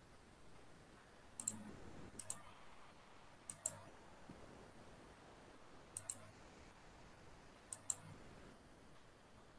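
Five sharp double clicks at uneven intervals, each pair a split second apart, over faint room tone.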